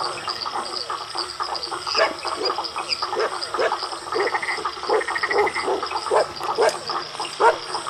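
A dense night chorus of frogs croaking, many short calls overlapping, over a steady high-pitched chirring. Two brief rapid trills stand out about four and five seconds in.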